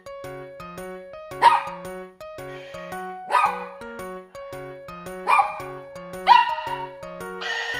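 Dog barking: about five short, sharp barks a second or two apart, over light background music with a plain note-by-note melody.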